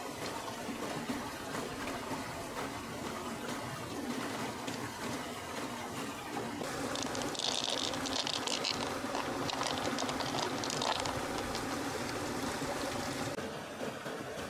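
River water running steadily. In the middle stretch it grows louder and hissier, with light clicks as a handful of pearls is dropped into an open mussel shell full of pearls.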